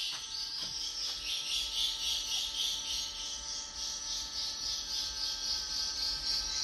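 Swiftlet calls played back through the swiftlet house's speakers: a dense, continuous high twittering chirp. This is the lure sound being checked and tuned inside the house.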